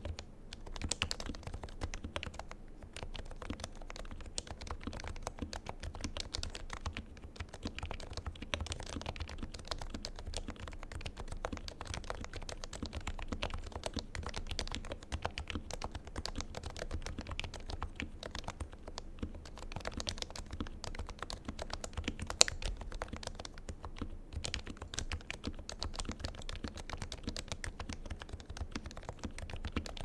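Fast, continuous touch-typing on an HHKB Professional 2 with Topre switches lubed with Krytox 205g2 and stabilisers lubed with Permatex: a dense, even stream of keystrokes, with one louder knock about two-thirds of the way through.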